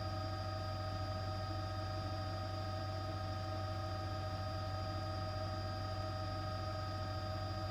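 A steady hum with several fixed higher tones above it, unchanging throughout.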